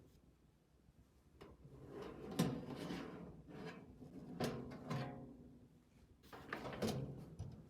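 A series of knocks and clatters from household objects being handled and set down, about five in all, the loudest about two and a half seconds in.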